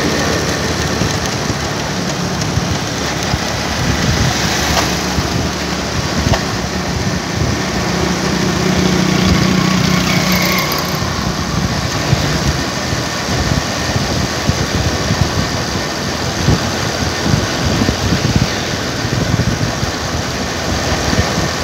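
Engine of the vehicle being ridden in, running steadily while under way, with road noise.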